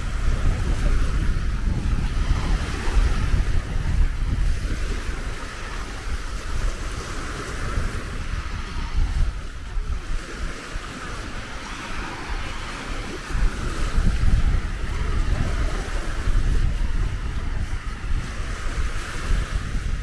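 Wind buffeting the microphone in uneven low gusts, over the steady wash of sea waves on a beach.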